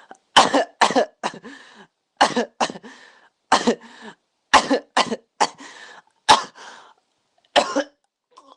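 A person coughing over and over, about a dozen sharp coughs in short fits of two or three, with quieter breathy sounds between the fits.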